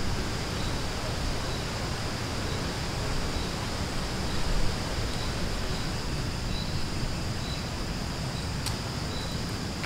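Forest ambience: a steady high insect drone with a faint chirp repeating every second or so, over wind rumbling on the microphone. A single sharp click near the end.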